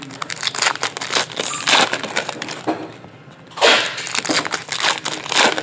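Foil trading-card pack wrappers being torn open and crumpled by hand, in loud bursts about two seconds in, near four seconds and near the end.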